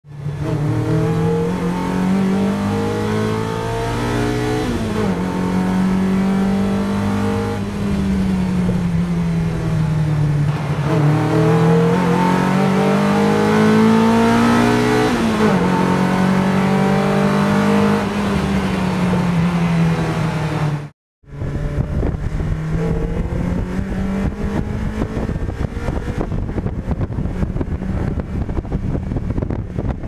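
MG TF 160's 1.8 VVC four-cylinder engine heard from inside the car through a 4-into-1 manifold and sports exhaust, accelerating with revs climbing and dropping sharply at several upshifts. About two-thirds through the sound cuts abruptly to the same car with the roof off, the engine lower under heavy wind buffeting on the microphone.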